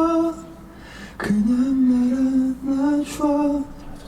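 A single voice singing slow, long-held notes a cappella, with breaths between phrases; the voice drops away about half a second in and comes back just after a second in.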